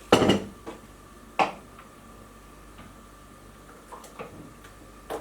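Spoon knocking against a bowl while lemon curd mixture is stirred: two sharp clinks about a second apart, then a few lighter taps near the end.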